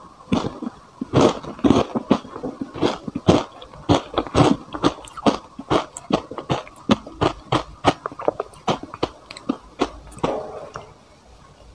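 A plastic spoon scraping and scooping into frozen matcha ice, giving a quick run of crisp, irregular crackling crunches several times a second. The crunching thins out and goes quieter about ten seconds in.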